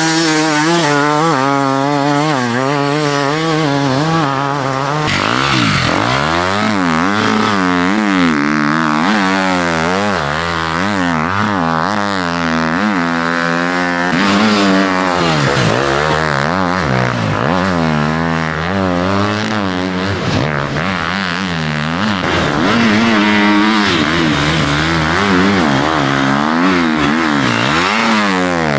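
Enduro dirt bikes racing through deep sand, engines revving hard with the pitch climbing and dropping again and again as the riders work the throttle and shift, with more than one bike heard at once at times.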